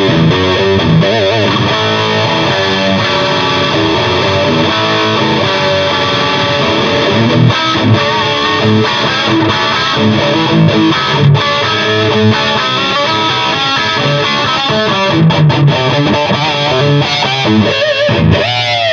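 Electric guitar with humbucker pickups played through an Orange Rockerverb 50 MK II valve head on its dirty channel with the gain turned high: a heavy, chunky distorted tone. It runs continuously through notes and chords, with wide vibrato on held notes about a second in and again near the end.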